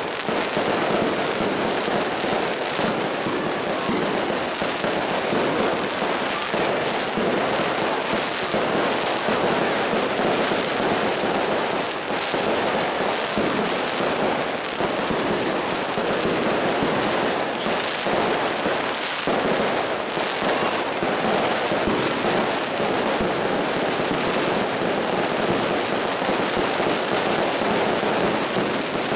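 Fireworks going off in a dense, unbroken barrage of rapid bangs and crackling.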